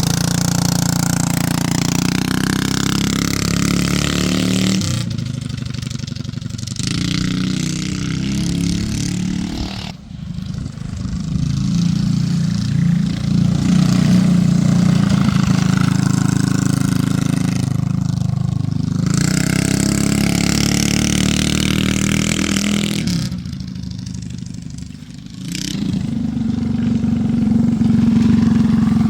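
Yerf-Dog's small engine running under way, revving up and down as the throttle is worked. The engine note drops back briefly about ten seconds in and again near the end, then picks up.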